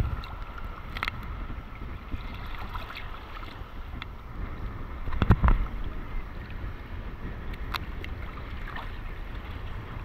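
Small sea waves lapping and sloshing against an action camera held at the water's surface, with a low rumble of water and wind on the microphone. About five seconds in there is a louder splash.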